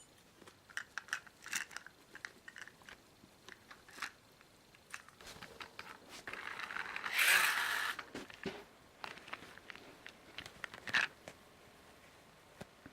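Kitten's claws scratching and picking at sofa fabric: irregular short scratches and plucks, with one longer, louder rasping scrape about seven seconds in.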